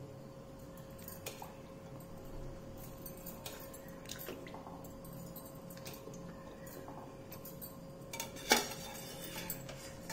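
Steel utensils clinking and tapping against a kadhai as cooking oil is poured in: a few light clinks, then one louder clink with a short ring about eight and a half seconds in. A faint steady hum runs underneath.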